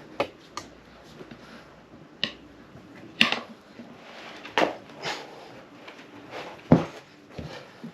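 Irregular knocks and clicks of tyre levers against a motorcycle wheel rim as a rear tyre is levered onto the rim, about seven separate strikes with the loudest near the end.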